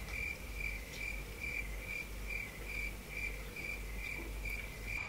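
Cricket chirping: a single high chirp repeated evenly a little more than twice a second, over a faint low hum.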